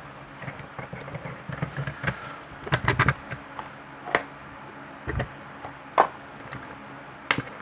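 Irregular small metal clicks and knocks as an opened padlock and lock-picking tools are handled, with a duller thump about five seconds in.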